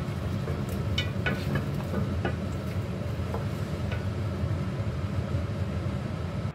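Wooden spatula stirring pork knuckle and radish chunks in a metal pot, giving a few light knocks and scrapes against the pot, over a steady low rumble.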